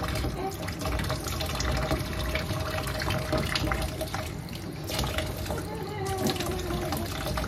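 Tap water running and splashing as a baby is washed at a sink: a steady rush broken by irregular splashes.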